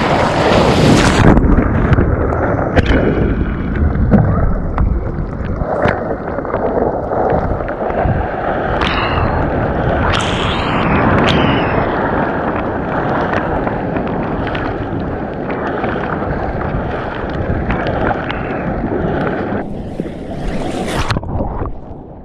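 Water rushing and splashing along a kayak's hull as it is paddled out through small waves, with wind buffeting the microphone and scattered sharp knocks.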